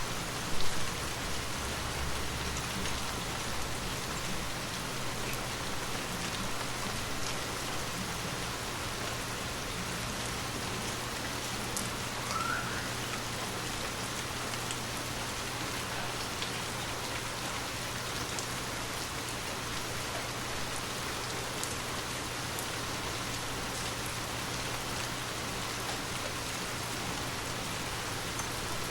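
Gentle rain falling steadily, with scattered individual drops ticking on a surface. A single loud thump comes under a second in, and a brief rising chirp about halfway through.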